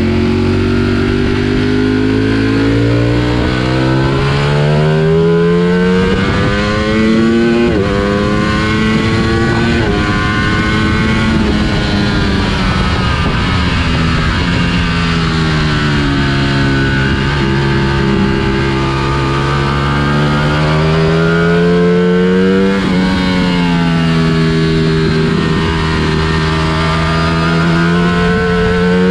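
Ducati Panigale V4S's V4 engine under hard track riding: it revs up through the gears with brief breaks at each shift, drops in pitch as the rider brakes and downshifts for a corner, then climbs again, several times over. A steady rush of wind noise runs underneath.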